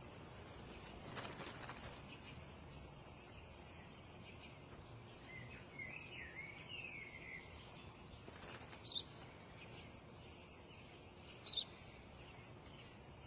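Sparrow chirping over faint outdoor background noise: a short warbling twitter about six seconds in, then two sharp single chirps near nine and twelve seconds.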